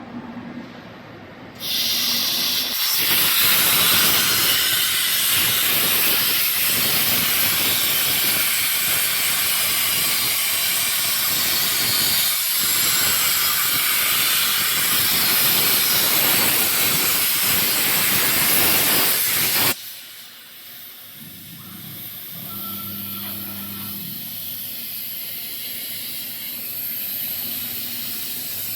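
CNC plasma cutter with a 160 A plasma source cutting sheet metal: the arc comes on with a loud, steady hiss about two seconds in and cuts off suddenly near the end of the cut, some eighteen seconds later, leaving a much quieter machine hum.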